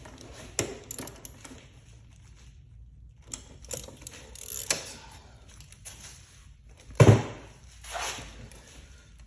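Tools and parts being handled in an engine bay: scattered clicks and scrapes of metal and plastic, with a sharp clunk about seven seconds in.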